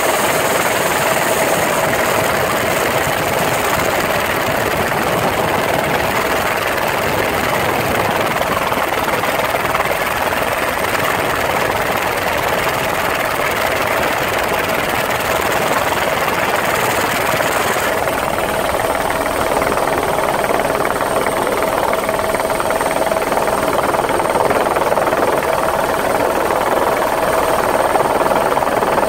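Helicopter running steadily overhead: continuous rotor and engine noise with a constant whine.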